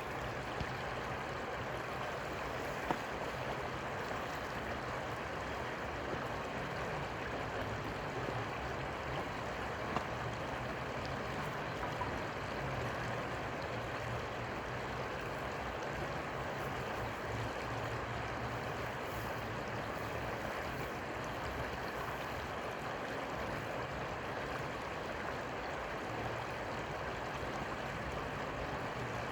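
River water running steadily: a continuous, even rushing sound with a faint low hum underneath.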